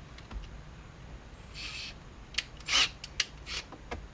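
Small clicks and scrapes of a screwdriver and bolts being worked on the dash trim panel: a soft brushing noise about a second and a half in, then several sharp clicks and a short scrape in the second half.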